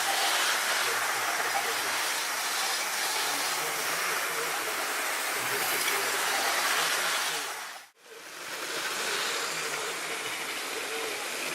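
OO gauge model train running along the track: a steady hissing whir of the motor and wheels on the rails. It drops out briefly about eight seconds in, then carries on.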